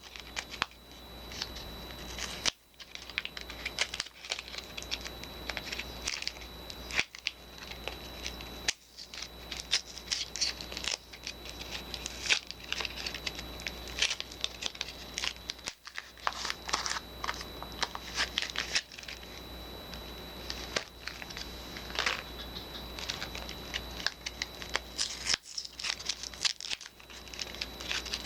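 Soap wrappers crinkling and tearing as bars of soap are unwrapped by hand, a dense, irregular crackle that breaks off abruptly several times at edit cuts.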